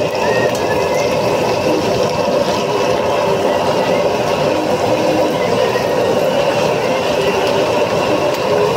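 High-output gas wok burner running with a steady roar under a wok of deep-frying oil that bubbles and sizzles.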